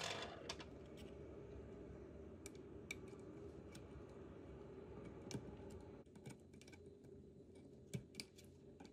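Faint, scattered small clicks and taps of tools and small plastic and metal parts being handled on a DJI Mini 4 Pro during reassembly, over quiet room tone.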